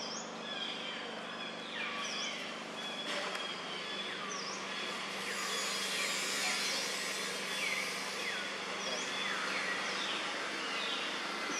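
Forest ambience: many short, high chirping calls that fall in pitch, repeated from several directions over a steady hiss and a low hum.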